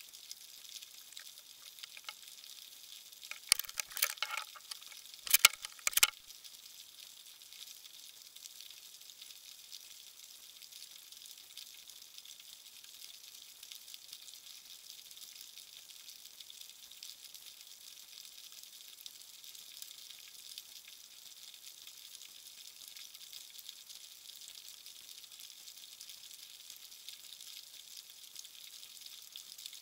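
Steady underwater crackling hiss, sizzle-like. Two short clusters of loud clicks and knocks break through it, about four seconds in and again around five to six seconds in.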